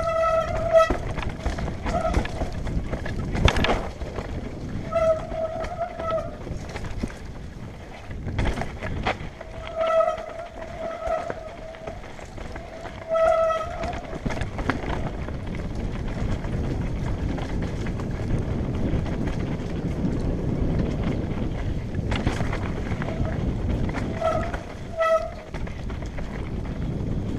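Mountain bike descending a rocky trail: tyres and bike rattling over stones with a few sharp knocks, and short bursts of disc-brake squeal, a steady high tone that comes and goes about six times, mostly in the first half and once more near the end.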